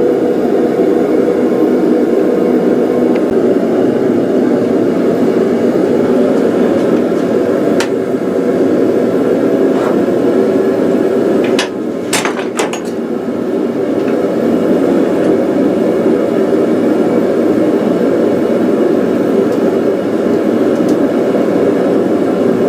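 A forge running with a steady low rushing noise, while square bar stock is twisted: a single sharp metal clink about eight seconds in and a quick cluster of clinks around twelve seconds.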